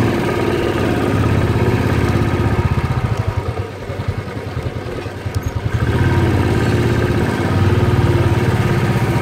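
Motorcycle engine running as the bike is ridden, easing off about three and a half seconds in and picking up again about six seconds in.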